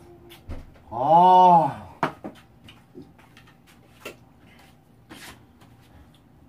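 A woman's drawn-out 'aah' about a second in, rising then falling in pitch, while eating kalguksu noodles. It is followed by scattered short clicks and smacks of eating and of a spoon or chopsticks against the bowl.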